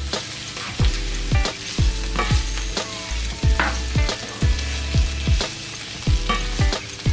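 Sliced onions and bell peppers sizzling in oil in a frying pan as a spatula stirs them. Under the sizzle runs background music with a deep bass beat, about two beats a second.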